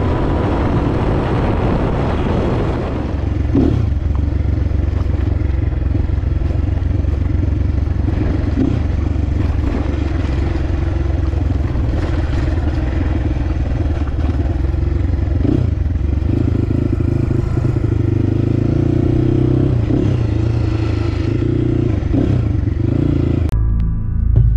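Crossfire HJ250 dirt bike's engine running at a steady throttle while the bike is ridden, with wind and road noise. Loose rattles and clatter come in as it rides over a rough, stony track.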